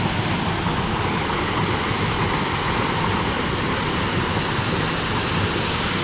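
Steady rushing noise of a river's flowing water.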